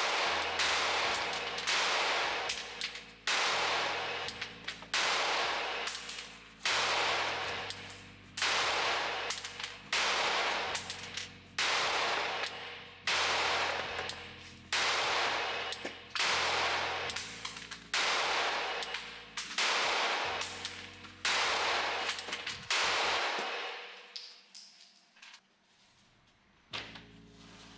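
Glock 43X 9mm pistol fired one shot at a time, about fifteen shots spaced roughly a second and a half apart, each with a long echoing tail. The string stops about 23 seconds in.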